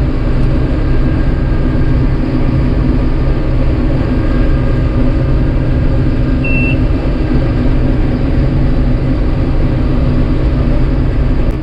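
Rotary combine harvester running steadily in the wheat field, with a short high beep about six and a half seconds in.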